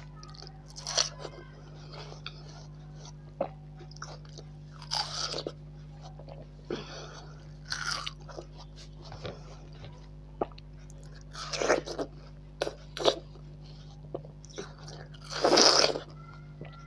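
Crisp bites into ripe watermelon, about half a dozen separate crunches with chewing between them. The longest, loudest crunch comes near the end. A steady low hum runs underneath.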